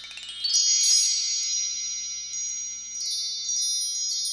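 Sparkling chime sound effect: a quick rising run of bell-like tones, then bright high chimes ringing on, with fresh strikes about half a second, one second, three seconds and four seconds in.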